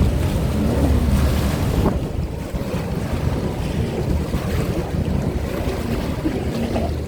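Jet ski engines running out on the water, mixed with wind noise on the microphone.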